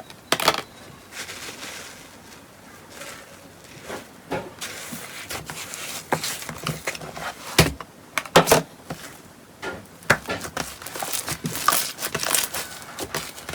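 Slime being pressed and squished by hand, making irregular crackles and sharp pops, with a few louder pops about halfway through.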